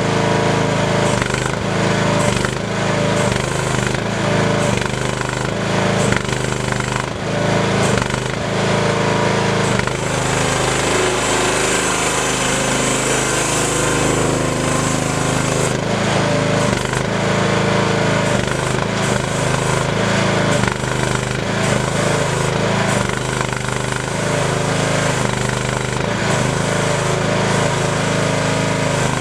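Miva VA08 mini excavator running, its small engine going steadily with a rattly clatter. For a few seconds in the middle the engine note shifts and a high hiss rises, then it settles back.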